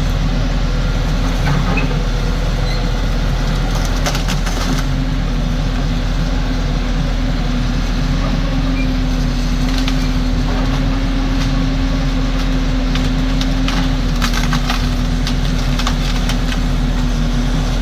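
Cat 255 skid steer's diesel engine running steadily, with bursts of cracking and snapping of brush and small wood breaking about four seconds in and again from about fourteen to seventeen seconds.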